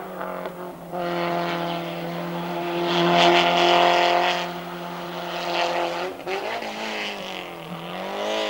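Race car engine, a Peugeot 205 hatchback, held at high revs up a hill-climb road. It grows loudest as the car passes about three seconds in, then the revs dip and climb again a couple of times near the end.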